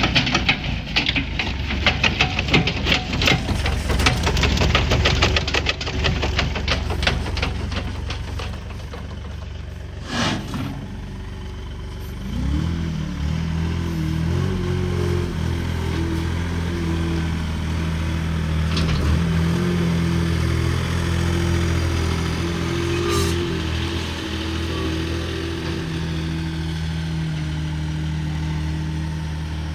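Diesel engine of a Komatsu WA30-6E0 compact wheel loader running as the machine drives and raises its bucket. It is louder and rattly for the first several seconds; a sharp click comes about ten seconds in, and from about twelve seconds the engine settles into a steady hum.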